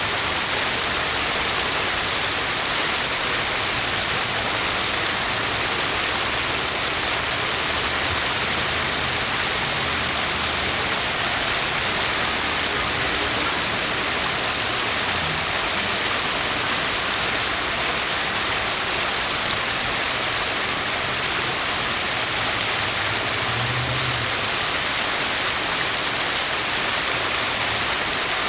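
Shallow creek water running over stones: a steady, even rush of water.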